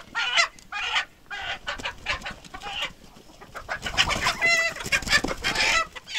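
Chickens clucking and squawking, many short calls in quick succession, with a brief lull about three seconds in before the calls pick up again.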